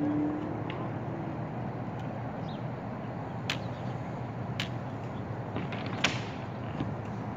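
Nails being driven into plywood roof sheathing: a few sharp knocks, the three clearest in the second half about a second apart, over steady outdoor background noise, with a short low hum at the very start.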